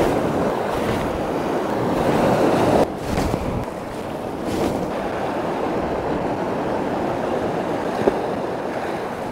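Sea surf washing onto a rocky shore, with wind gusting across the microphone. The noise builds, then drops off sharply about three seconds in.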